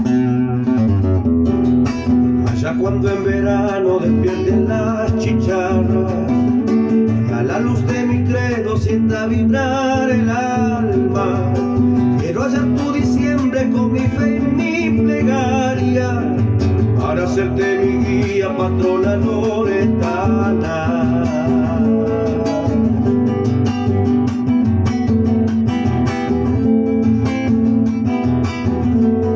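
Acoustic guitar played solo, strummed and picked in a continuous accompaniment. A man's voice sings over it through the middle of the passage.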